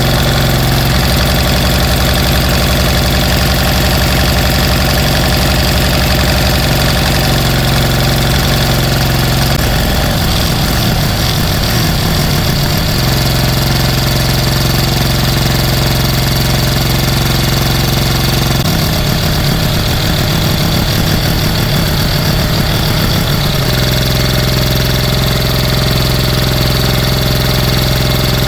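Briggs & Stratton 23 hp Intek V-twin engine running steadily, rebuilt with a ruined piston, a bent camshaft and a holed cylinder. Twice, about ten seconds in and again near twenty seconds, the even running turns rough and uneven for a few seconds before settling back.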